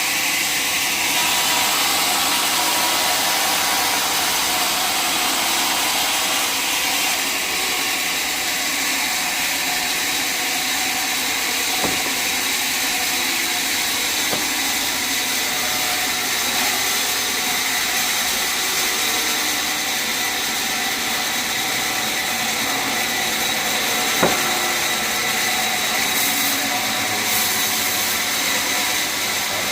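Sawmill machinery running steadily, a high-pitched mechanical noise, with a few sharp knocks, the loudest about two-thirds of the way through.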